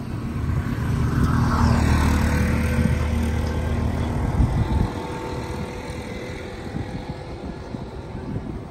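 A motor vehicle engine drone with road noise that swells to a peak about two seconds in and fades. The low engine sound drops away about five seconds in, leaving a fainter steady hum.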